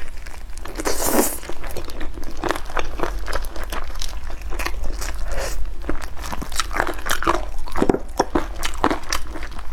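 Close-miked eating of chicken: repeated biting and chewing, with many sharp, irregular crunches.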